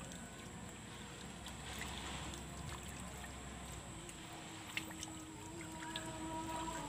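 Faint steady outdoor background noise with a thin, steady high whine. A single light tick comes a little before five seconds in, and faint held tones join in the last few seconds.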